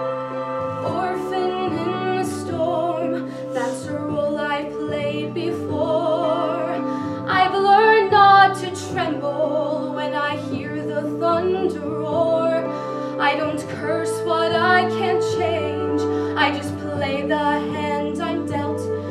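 A solo female voice sings a slow musical-theatre ballad with wide vibrato, over an instrumental accompaniment of held chords. The voice swells to its loudest about eight seconds in.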